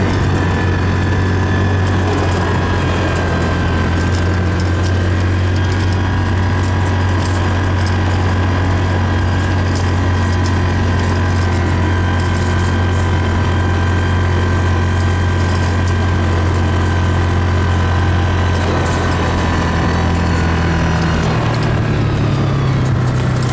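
A vehicle engine running steadily with a low hum, with light rattling clicks over it. The engine note rises about three-quarters of the way through.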